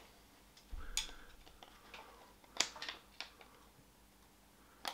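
A few light, scattered clicks and taps of a screwdriver against a small metal gearbox shifter-linkage part as a grommet is pried off it; the sharpest click comes a little past halfway.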